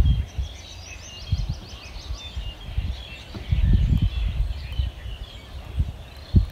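Small birds chirping around the pond, with a quick run of about a dozen falling notes about a second in, over gusts of wind buffeting the microphone.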